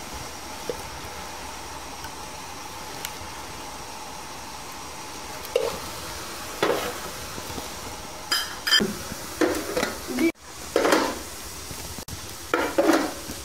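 Steel bowls, spoon and idli rings clinking and scraping as idli batter is spooned into the metal rings on the steamer plate. There are several short clatters in the second half, over a steady hiss.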